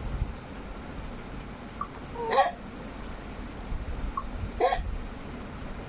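Two hiccups about two seconds apart, each a short sharp catch of breath with a brief squeaky vocal note.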